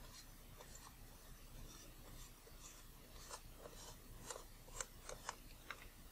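Faint rubbing and light clicks of a part being twisted by hand to engage its screw thread in a Nikon Micro-Nikkor 105mm f/2.8 lens barrel. A few sharper ticks come between about four and five and a half seconds in.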